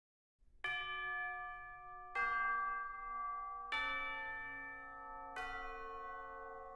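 Bell-like chimes playing a slow melody: four struck notes about a second and a half apart, each on a different pitch and ringing on as the next one sounds.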